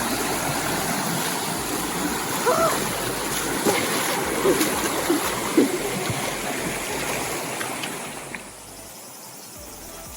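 River water rushing over rocks with some splashing, and brief faint voices in the middle; the rushing drops away abruptly near the end.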